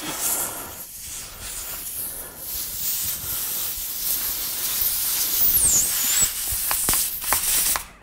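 Air hissing out of a punctured truck tire around the plug insertion tool in the reamed nail hole, the plug not yet pushed in far enough to seal. A brief high whistle comes past the middle, and the hiss cuts off suddenly near the end.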